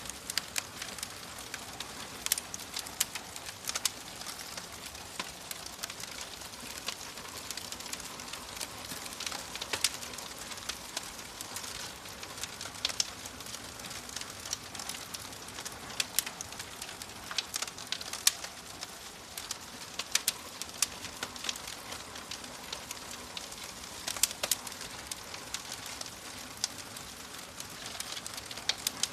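Wood fire crackling in a fireplace: irregular sharp pops and snaps, several a second, over a soft steady hiss.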